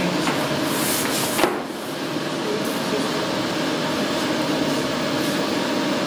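UD-3206H wide-format inkjet printer running, a steady mechanical hum from its print-head carriage shuttling across the banner. One sharp knock stands out about a second and a half in.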